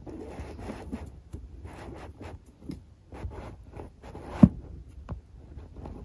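Irregular scratching and scraping on a rug, with scattered light ticks and one louder knock about four and a half seconds in.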